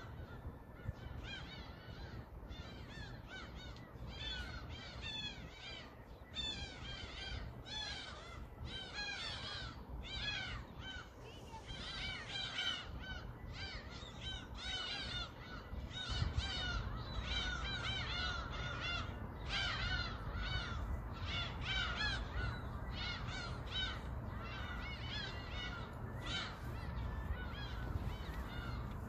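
A flock of birds calling continuously, many short, harsh, arching cries overlapping one another, over a steady low rumble.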